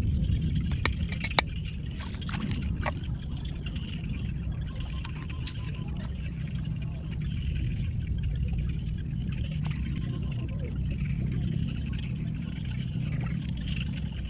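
Water trickling over a steady low rumble, with a few sharp clicks in the first three seconds.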